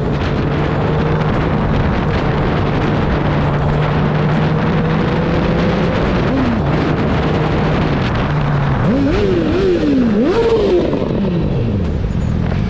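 Motorcycle engine running steadily under a strong rush of wind and road noise. About nine seconds in it revs up and drops back several times as it shifts through the gears, then winds down.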